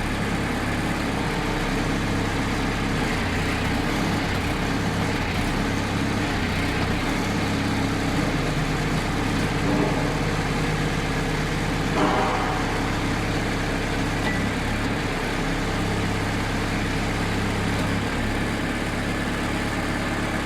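Engine of a tractor-type hydraulic drilling rig running steadily. A short clank sounds about twelve seconds in.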